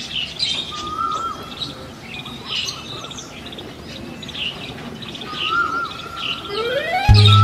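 Many small birds chirping and twittering, with a clear whistled note heard twice. Near the end a rising whistle leads into music with a heavy bass beat that cuts in suddenly.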